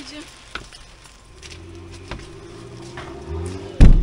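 Scattered light knocks and clicks of camping gear being handled and loaded, then near the end one very loud, heavy thump close by.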